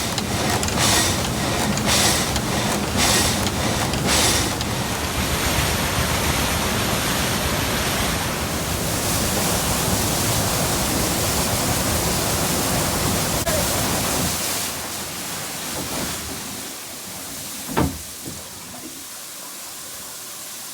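Water-powered vertical up-and-down sawmill saw cutting, rasping strokes about once a second for the first few seconds, over the steady rush of water driving the wheel. The rushing grows quieter from about fifteen seconds in, and there is a single sharp knock near the end.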